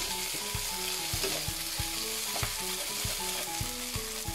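Diced meatloaf, onions and bell pepper sizzling in a nonstick frying pan, stirred and scraped with a wooden spatula: a steady hiss of frying. Soft background music with short stepping notes and a light beat runs underneath.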